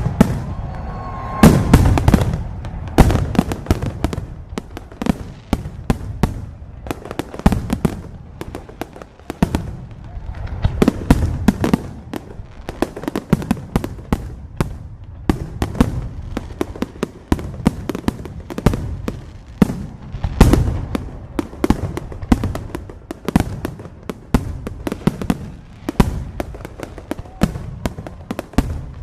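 Fireworks going off in rapid succession: a dense run of bangs and crackling pops, with heavier booms about two seconds in and again around twenty seconds in.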